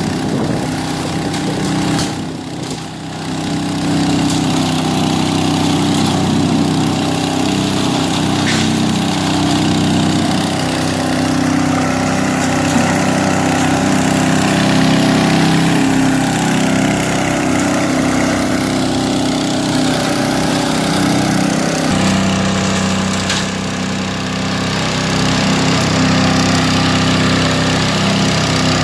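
Gasoline-engine leaf vacuum running steadily, its small engine droning with the rush of its suction fan. The sound dips briefly about two seconds in and steps to a different pitch about twenty-two seconds in.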